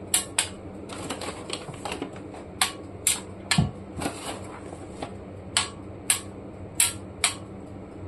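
Chocolate chips dropped by hand into an empty Prestige metal loaf pan, each landing as a sharp tick on the pan's textured bottom, about a dozen irregularly spaced ticks.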